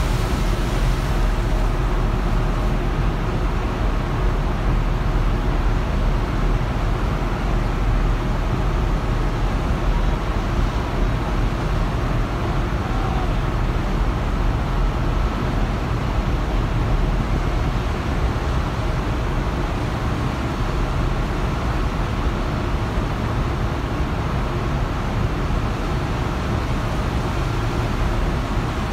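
Steady wind rumble on the microphone and the rush of churning sea water between two ships underway at sea.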